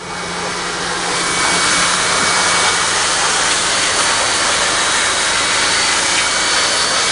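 Pressure washer wand spraying water into a car's engine bay to clean it: a steady hiss of spray over a low motor hum, building up over the first second and then holding.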